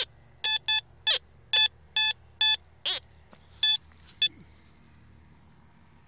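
Metal detector beeping as its search coil passes over a target: about ten short tones in quick succession, most at one steady pitch and a few sliding down, stopping a little over four seconds in.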